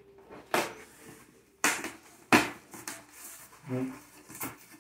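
Sealed cardboard shipping box being cut and pulled open: a handful of sharp rips and scrapes of packing tape and cardboard flaps about a second apart, the loudest a little over two seconds in.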